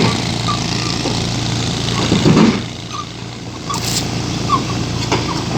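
Heavy diesel engine running steadily, with a brief louder surge a little over two seconds in and a short dip in level just after.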